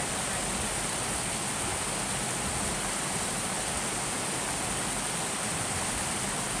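Stream water rushing steadily over a small rocky cascade, an unbroken hiss.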